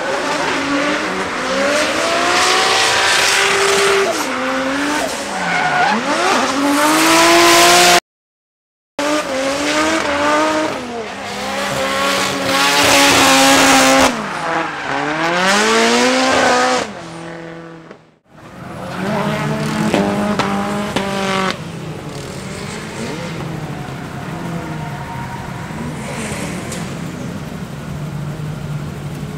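Drift car engines revving hard, rising and falling over and over through slides, with tyre squeal. The sound drops out briefly twice, and in the last third a car engine runs lower and steadier as it comes back into the pits.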